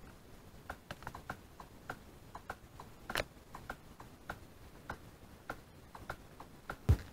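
Faint light ticking and clicking while a 3.5 mm aux plug is handled and pushed into a phone's headphone jack, with one louder click about three seconds in. Just before the end a loud, deep bass thump from the subwoofer: the first kick of the phone's music now coming through the subwoofer.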